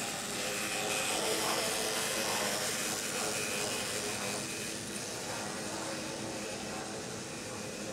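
Electric model trains running on a tabletop layout: a steady whir of their motors with a few held tones, over a constant hiss of wheels rolling on the track.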